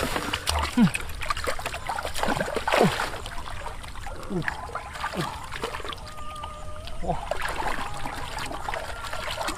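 Shallow muddy water splashing and trickling as hands grope and scoop through mud and water, with a few short falling tones now and then.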